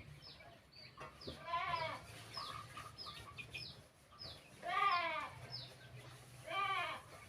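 Goat bleating three times, each a wavering call lasting about half a second, the loudest in the middle. Short high chirps repeat throughout.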